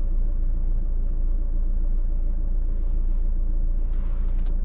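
Steady low rumble of a 2024 Jeep Meridian's 2.0-litre diesel engine running, heard inside the cabin with an even drone and no change in pitch.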